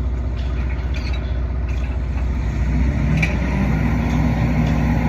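A steady low engine drone, like a motor idling, with a few light clicks in the first half; a steadier low hum joins in about three seconds in.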